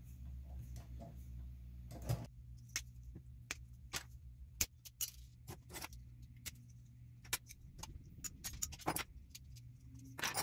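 Short sharp clicks and taps, irregular, of small plastic and metal parts handled and fitted together by hand as a scale RC crawler's suspension links and ball ends are assembled, over a steady low hum.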